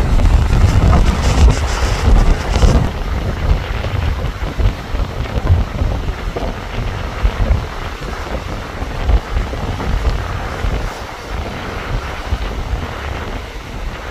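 Strong wind buffeting the microphone in gusts, over the wash of choppy waves on the shore; the gusts are heaviest in the first three seconds and ease after that.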